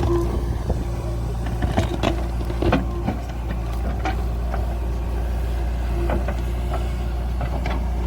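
Diesel engine of a JCB backhoe loader running steadily with a constant whine, with a few sharp knocks and cracks scattered through.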